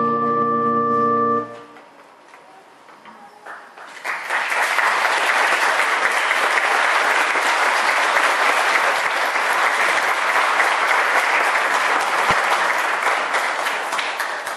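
A held musical chord ends about a second and a half in; after a short lull, an audience in the pews breaks into steady applause about four seconds in, easing off near the end.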